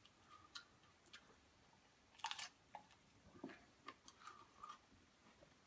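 Faint chewing of a raw Scotch bonnet pepper: scattered soft mouth clicks, with one brief louder hiss a little over two seconds in.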